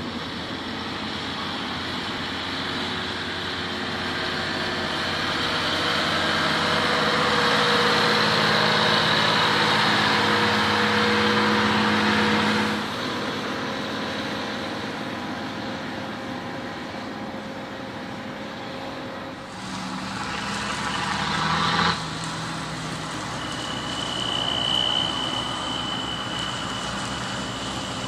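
Heavy diesel farm transport vehicles running under load over a field: first a MAN truck, then a Fendt tractor hauling a trailer, with the engine sound changing abruptly a few times. A steady high whine is heard near the end.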